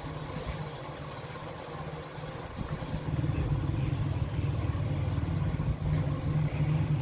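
An engine running with a low rumble, growing louder about three seconds in.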